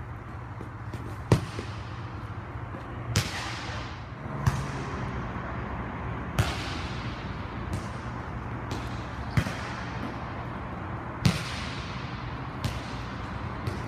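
Volleyball being struck over and over in a passing drill: about seven sharp smacks roughly one to two seconds apart, as the ball is hit toward the player and passed back. Each smack echoes off the hall, over a steady low hum.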